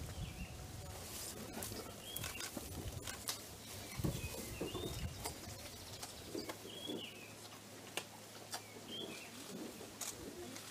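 Birds chirping in short high calls every second or two, with scattered sharp clicks.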